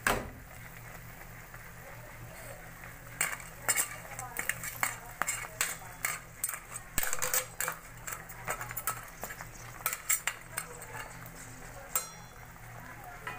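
A utensil stirring a pot of crabs, squash and boiling coconut milk, clinking and knocking against the metal pot in a run of irregular clicks from about three seconds in until about eleven seconds in. A single sharp knock comes at the very start and another near the end.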